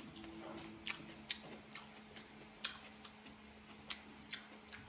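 Faint, irregular wet clicks of a mouth chewing spaghetti, lips smacking about one or two times a second, over a low steady hum.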